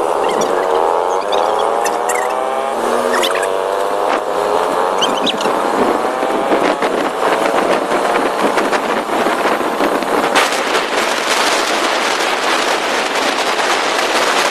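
Motor scooter engine running while riding, its note rising and falling over the first few seconds. After that it is mostly covered by wind rushing over the microphone, with many short knocks.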